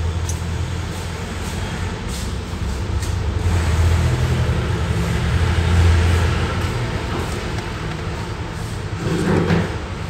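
Steady low rumble of road traffic, swelling louder about four to six seconds in as a vehicle passes.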